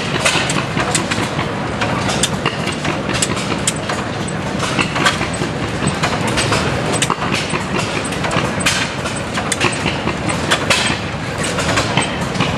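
Hercules-built Economy stationary gas engine running, its open crank and rods clattering with a steady run of sharp clicks and knocks.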